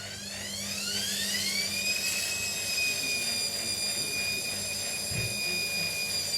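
Indesit IWSE 5125 washing machine's motor speeding up the drum: a whine that rises in pitch over about two seconds, then holds steady at speed.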